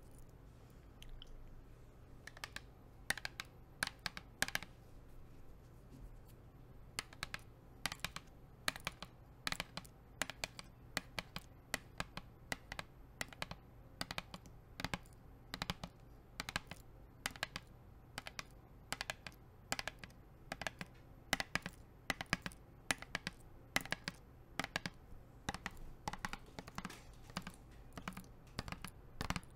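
Long nail-ring tips tapping and clicking on a water bottle close to the microphone, in quick irregular runs of sharp taps that begin about two seconds in.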